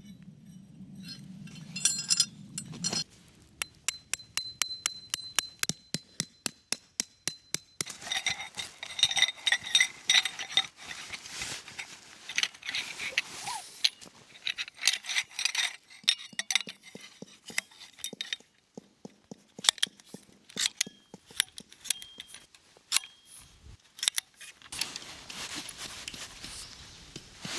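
A long run of light clinks and clicks, like small hard objects being handled: evenly spaced ticks for a few seconds, then busier irregular clattering.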